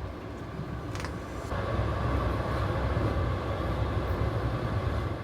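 Steady low rumble of a moving vehicle, growing louder about a second and a half in, with a single click about a second in.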